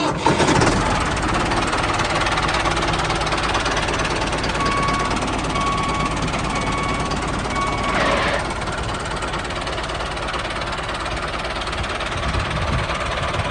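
A small motor running steadily with a fast, even rattle. Partway through come four short, even beeps, followed by a brief falling whine.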